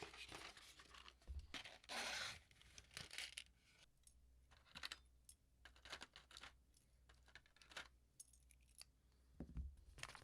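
Quiet handling of keyboard build parts: scattered light clicks and taps, with a short tearing rustle about two seconds in.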